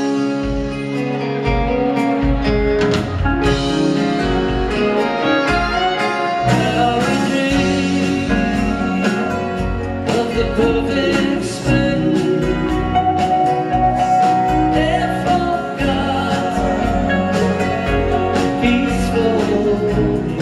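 Live band music from a string band with fiddle, acoustic guitars, bass, keyboards and drum kit, playing with a steady drum beat.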